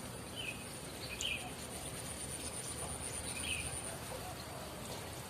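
Outdoor wetland ambience: a steady high-pitched insect drone, like crickets, with a few short bird chirps over a low background hiss.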